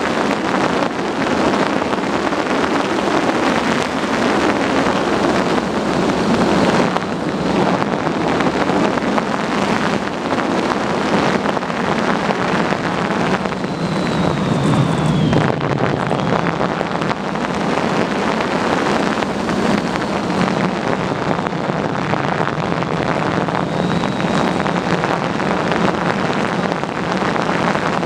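Wind rushing over the microphone of a camera carried on an Easy Glider Pro RC motor glider in flight, mixed with the buzz of its electric motor and propeller. A faint high whine comes and goes, falling in pitch about 14 seconds in.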